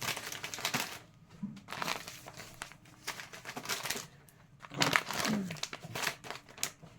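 Packets of instant mashed potatoes crinkling and rustling in irregular clusters as they are handled and packed into a storage container.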